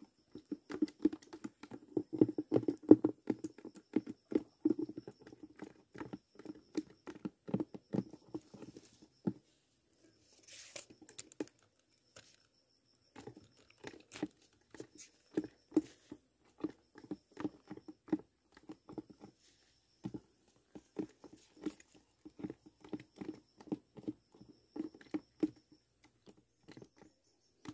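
Close handling noise from hands working a freshly caught climbing perch (betok) and the fishing tackle: irregular rustling, crinkling and tapping. It is busiest in the first several seconds, stops for a few seconds past the middle, then resumes.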